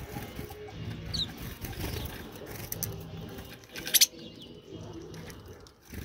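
Pigeon cooing in low phrases repeated about every two seconds, with a short high bird chirp about a second in. A sharp knock about four seconds in is the loudest sound.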